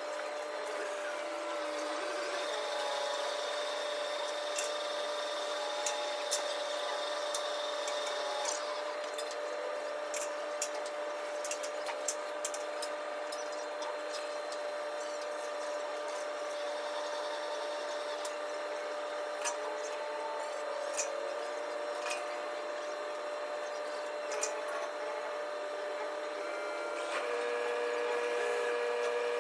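Steady machinery whine with several held tones and scattered sharp clicks. The main tone changes pitch and the sound grows a little louder near the end.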